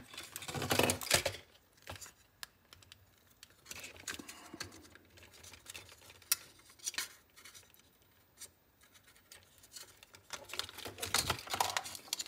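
Steel multi-tool pliers cutting and working a thin wire inside a plastic headphone earcup: scattered small clicks and handling rattles, busiest in the first second or so and again near the end.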